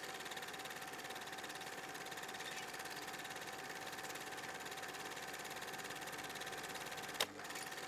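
Film projector running: a steady whirring hiss with a fast flutter and a faint steady hum-tone, with one sharp click about seven seconds in.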